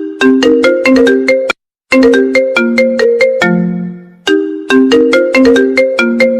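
iPhone 14 Pro Max ringtone playing: a looping melody of quick, bright, marimba-like notes in repeating phrases, broken by a brief silence about a second and a half in.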